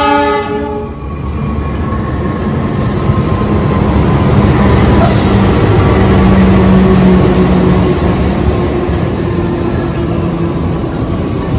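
Freight train passing through a station: a diesel locomotive followed by rolling freight wagons, a steady rumble that grows louder toward the middle and eases off slightly. A pitched note at the start fades out about a second in.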